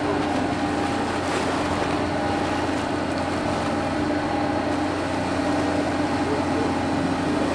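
Steady drone of the Natchan World high-speed ferry's diesel engines running while the ship is still moored before departure: an even hum with a few steady tones over a wash of noise.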